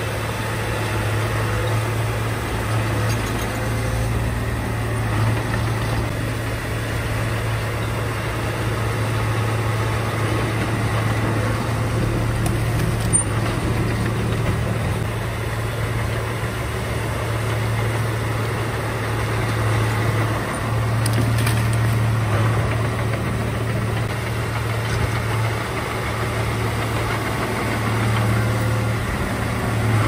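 Komatsu D31A bulldozer's diesel engine running steadily with a low drone, with a single sharp click about thirteen seconds in.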